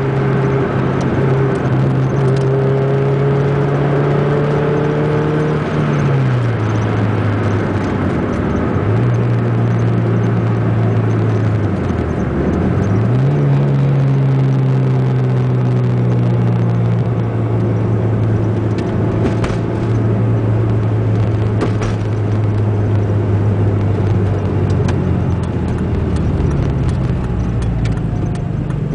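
Ford Zetec four-cylinder engine breathing through a 4-into-1 exhaust header, running loud at fairly steady revs while the car is driven. Its note drops and climbs back twice, about six and twelve seconds in.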